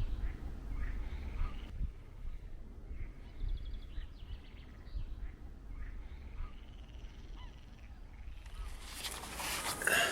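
Wind rumbling on the microphone while small birds call in short rapid chirping series. Near the end comes a louder rushing, rustling noise.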